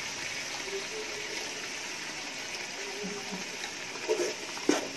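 Steady sizzle of herbs and spices frying in hot butter and oil in a metal pot as a paste is stirred in. A spoon knocks against the pot a few times near the end.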